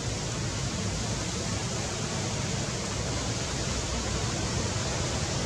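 Steady, even outdoor hiss with no distinct call, click or other event standing out.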